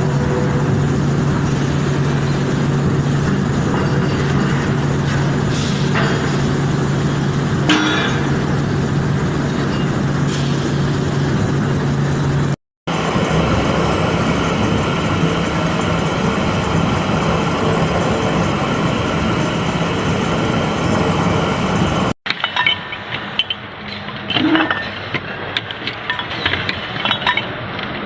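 Industrial machinery running with a steady mechanical hum, cut off abruptly twice and replaced by different machine noise. The last part is quieter and uneven, with many light metallic clinks.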